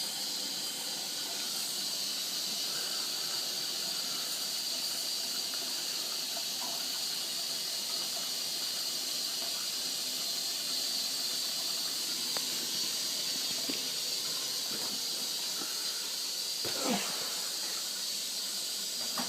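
Bendix 7128 washing machine's solenoid water inlet valve letting water in, a steady high hiss as the machine fills.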